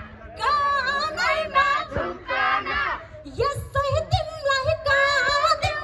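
A woman singing live into a microphone, her voice carried over a public-address system, with gliding, held notes. A few low thumps come through about halfway.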